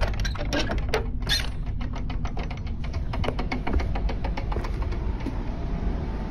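Footsteps on wooden boards: a quick run of light clicks and taps, several a second, that thins out about five seconds in, over a steady low rumble of phone-microphone handling noise.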